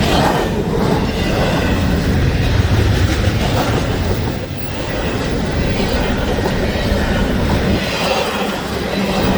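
A train passing close by, with the continuous rumble and clatter of its wheels on the rails.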